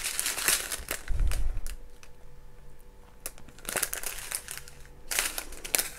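Small clear plastic bags of resin diamond-painting drills crinkling as they are handled, in about four short bursts, with a low bump about a second in.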